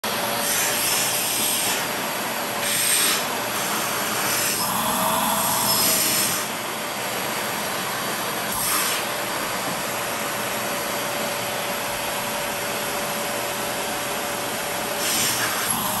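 Shark upright vacuum cleaner running with a steady whine while its hose wand sucks at a bare foot. The rush of air swells in several short surges, and the whine lifts slightly once about five seconds in.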